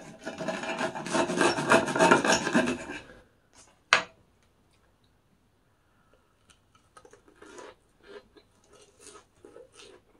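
Table knife sawing through the crisp breaded crust of a large fried pork cutlet: a dense scraping rasp of quick strokes for about three seconds. A single sharp click follows about four seconds in, then faint small clicks and rustles.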